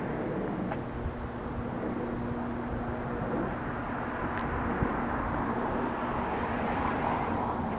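Distant Cirrus SR20 single-engine propeller plane climbing away after take-off: a steady engine-and-propeller drone whose low hum fades about halfway through.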